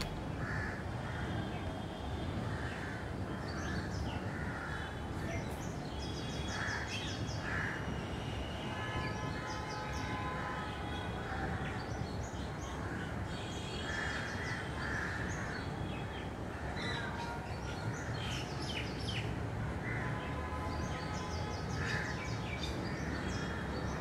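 Crows cawing again and again, with smaller birds chirping and trilling in between. A steady low background rumble runs underneath.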